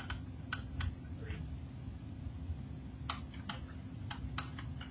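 Light clicks and taps of a stylus on a writing screen during handwriting, over a steady low hum. A few taps come near the start, then a quicker run of them from about three seconds in.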